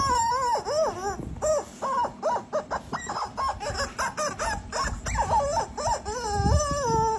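Squeaky plush dog toy squeaking over and over as a Rottweiler chews it: a fast run of short squeaks wavering in pitch, with one longer, held squeak near the end.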